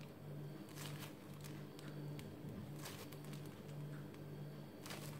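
Faint crinkling of a plastic piping bag being squeezed to pipe cream petals, a soft crackle about every two seconds, over a low hum that pulses about twice a second.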